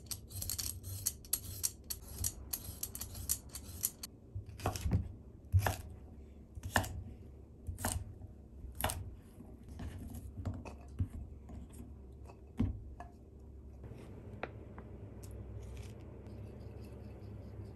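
Asparagus spears being peeled with a vegetable peeler in quick scraping strokes on a wooden cutting board. About four seconds in, a kitchen knife starts cutting them into short lengths, about one chop a second against the board, the chops thinning out after about ten seconds.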